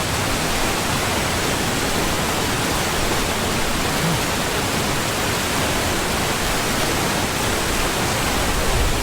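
Water rushing over a small waterfall: a steady, even hiss with no breaks.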